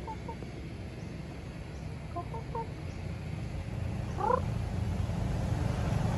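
Chickens calling: a few short, clipped clucks, then a brief rising call about four seconds in, over a low rumble that grows louder near the end.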